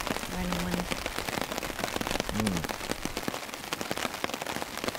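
Heavy rain pattering on a tarp overhead, a dense run of separate drop hits. A person gives a short held hum about half a second in and another brief voiced sound near the middle.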